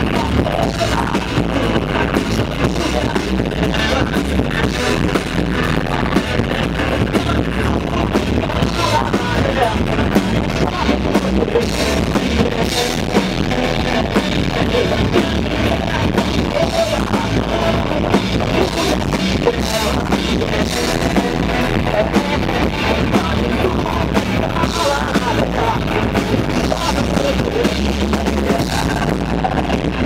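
Metalcore band playing live and loud without a break: drum kit and cymbals driving the song, with amplified band instruments and a vocalist at the microphone.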